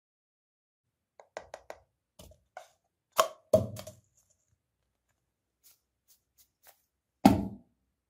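Light taps and knocks of small objects being handled: a toy football, paper cups and plastic sweet containers. Two louder knocks come about three seconds in, and a heavier, deeper thud near the end.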